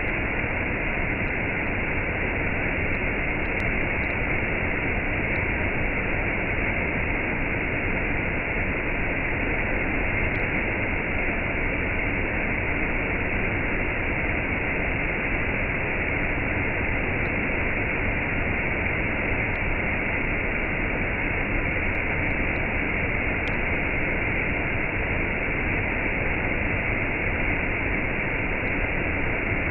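Waterfall and cascade of water falling steadily, a constant rushing hiss with no change in level.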